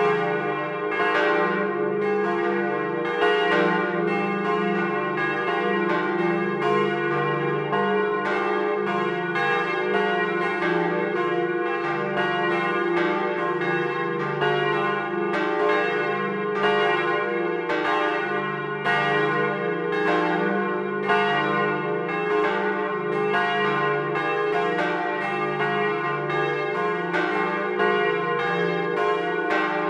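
Several bronze church bells swinging and ringing together in a peal, heard close up inside the timber bell chamber. The clapper strokes overlap about once or twice a second over a steady hum of ringing.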